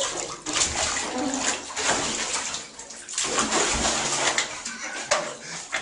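Water splashing and running in a bathtub as a cat is washed by hand, with a brief lull about three seconds in.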